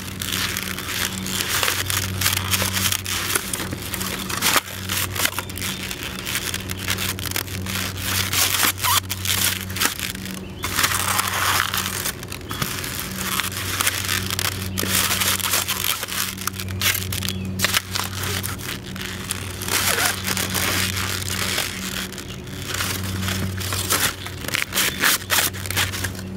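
Black Wolverine Marquette work boots stomping on and crushing white foam take-out containers on concrete: repeated crunches of breaking foam. A steady low hum runs underneath.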